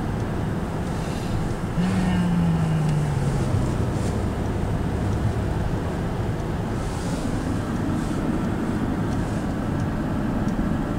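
Car driving, heard from inside the cabin: steady engine and road noise. About two seconds in there is a brief falling tone, and a low steady hum comes up over the second half.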